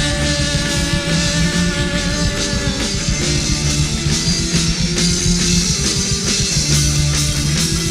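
Rock band playing, with electric guitar, bass and drum kit; a long held note ends about three seconds in and the band carries on.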